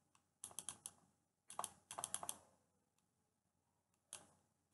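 Faint clusters of quick clicks from the pointing device used to hand-write a word on a digital whiteboard. They come in four short groups, with quiet gaps between them.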